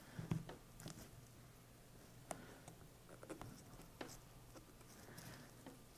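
Faint scratching and scattered clicks of a plastic pry tool working under a Garmin nüvi's Li-ion battery to break it free of its adhesive.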